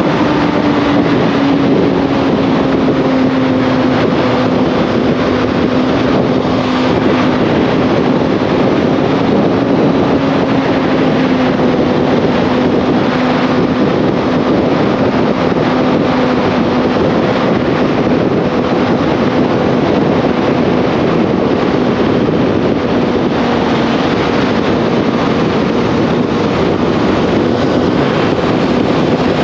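Motorcycle riding at a steady cruise: a steady engine tone under heavy wind noise on the microphone, the pitch slowly easing down.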